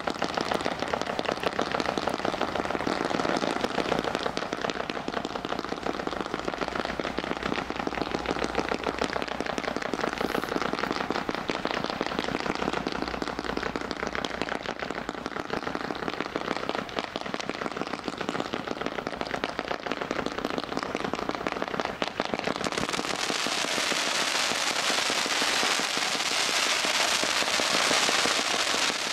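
Firework cake shooting glittering, crackling comets: a dense, continuous crackle of many tiny rapid pops from the burning comet tails. About 23 seconds in the crackle turns sharper and hissier.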